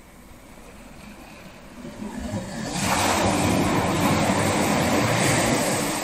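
Ocean wave breaking on the shore: a low rumble builds about two seconds in, then the surf washes in as a loud hiss for about three seconds and starts to ebb near the end.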